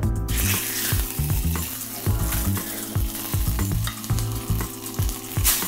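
Red snapper fillet sizzling as it sears skin side down in very hot oil in a stainless steel skillet, a steady crackling hiss, with a louder burst of sizzle near the end.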